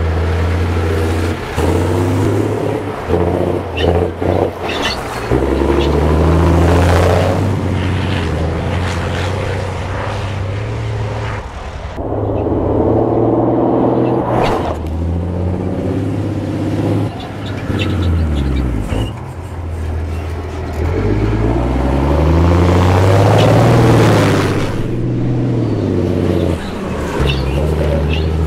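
GINAF Dakar rally truck's diesel engine driven hard on a dirt track, the revs climbing and dropping again and again through the gears, with loud rushes of sound as it passes close by several times.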